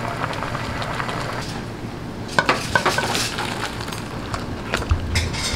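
Seafood kalguksu boiling in a metal pan, a steady hiss of bubbling broth, with a metal utensil clinking against the pan several times about two and a half to three seconds in. Near the end the noodles and broth are poured from the pan into a bowl, with a few more knocks and clinks.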